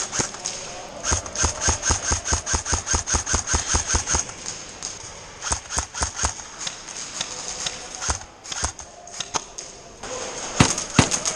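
Airsoft electric rifles firing on full auto: rapid, evenly spaced shots in a long burst of about three seconds, then shorter bursts, with a few louder thumps near the end.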